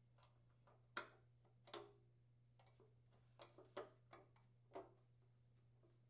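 Faint, scattered clicks and light metal taps, about six in a few seconds, as a thin sheet-metal PTAC subbase side panel is handled and fitted into place, over a low steady hum.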